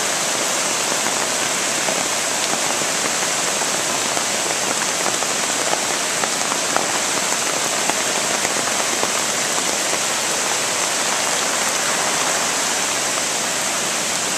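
Steady, even rush of water from a small river in flood, running many feet over its banks, with no let-up.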